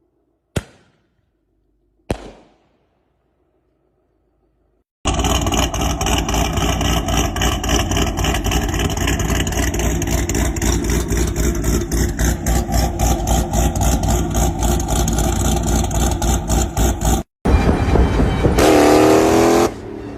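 Supercar exhausts: two sharp bangs, then after a pause a long, loud stretch of rapid popping and revving that cuts off suddenly, followed by an engine revving up with a rising pitch.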